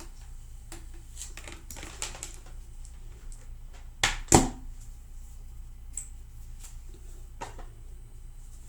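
Flat iron clicking and clacking as it is opened, closed and handled, with lighter clicks scattered through and two loud clacks close together about four seconds in.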